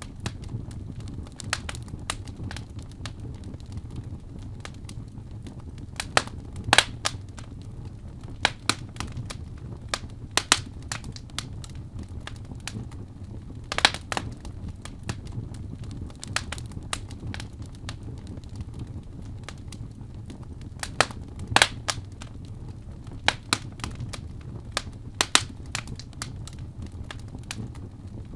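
Wood fire burning in a fireplace: a steady low rumble of the flames with irregular sharp crackles and pops, some coming in quick clusters.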